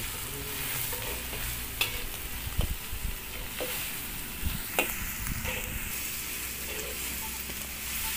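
Onions, galangal and ground spices sizzling as they fry in a metal wok over a wood fire, stirred with a metal slotted turner that scrapes the pan and now and then gives a sharp clink against it. This is the spice base being sautéed before the meat goes in.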